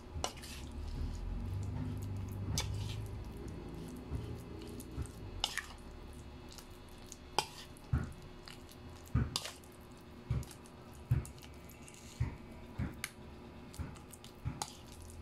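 Metal spoon mixing wet ground chicken with flour and seasonings in a bowl: a soft squishing for the first few seconds, then irregular sharp clicks as the spoon knocks against the bowl.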